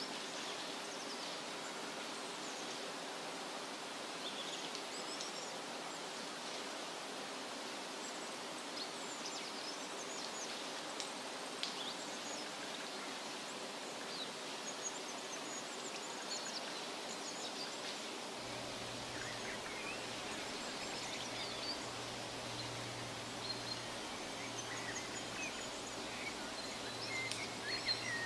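Forest ambience: a steady hiss of background noise with many brief, high bird chirps scattered throughout.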